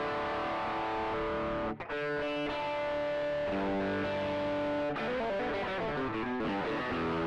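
1974 Fender Telecaster Custom played through a SansAmp Classic pedal in its Lead (Marshall) mode and recorded direct: overdriven electric guitar chords strummed and left to ring. There is a short break about two seconds in, and the notes shift near the end.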